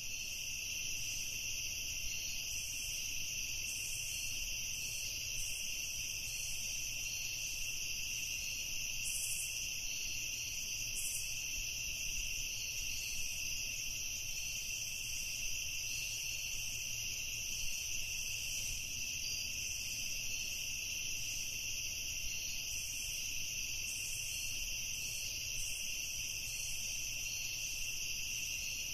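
Insects chirping in a steady, unbroken trill, with a faint low rumble underneath.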